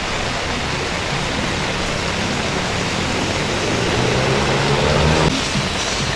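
Heavy rain falling steadily, a continuous hiss. A lower rumble swells about four seconds in and cuts off suddenly just after five.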